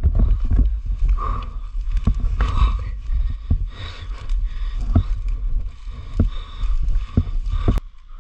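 A dirt bike working over a rough trail: a steady low rumble with wind on the microphone and repeated knocks and clatter, irregular and several a second. The sound drops off abruptly near the end.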